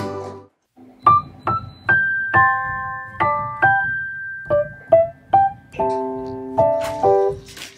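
Background piano music: a new piece starts about a second in with separate single notes, then chords.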